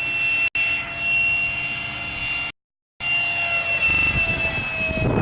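RC model jet's ducted fan running with a steady high-pitched whine that drifts slightly lower in pitch toward the end. The recording cuts out for a moment about half a second in, and again for about half a second in the middle.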